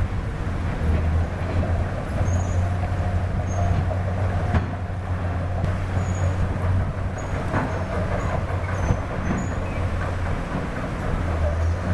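Heavy diesel machinery running steadily under load with a constant low drone, with a few short knocks.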